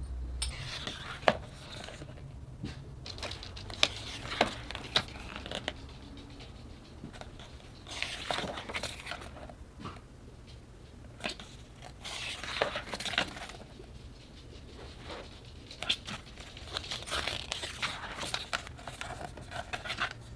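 Packaging being handled during an unboxing: paper and plastic wrappers crinkling and rustling in several bursts, with scattered sharp clicks and taps.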